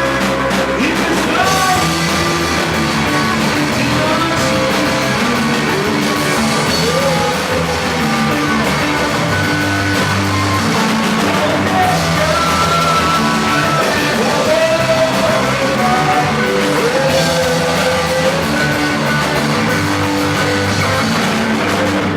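A rock band playing live: electric guitars, bass and drums, with a singer's voice over them.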